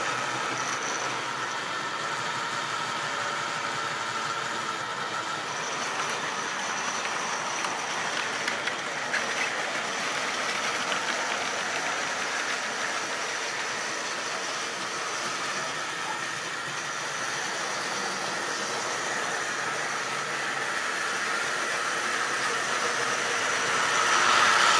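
Model railway train running on its track: the wheels clatter over the rail joints and the locomotive's electric motor hums, louder as the train passes close at the start and again near the end, fainter while it runs on the far side of the layout.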